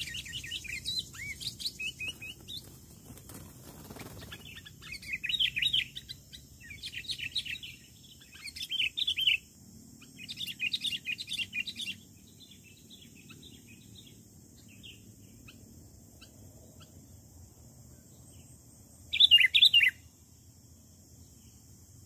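Sooty-headed bulbuls (kutilang) calling in bursts of fast, choppy chattering, several bursts through the first half and one loud burst near the end.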